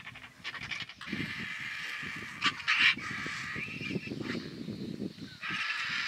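Vultures squabbling at a carcass: a dense chatter of harsh calls, with a louder brief burst about halfway through.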